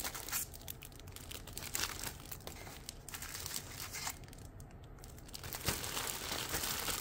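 Clear plastic bags around plastic model-kit sprues crinkling and rustling as they are handled. The crinkling comes in irregular bursts, with a brief lull a little past the middle.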